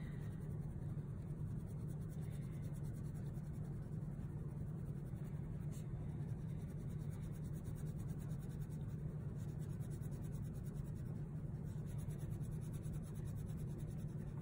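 Wax crayon coloring on paper in small, quick back-and-forth strokes: a steady scratchy rubbing.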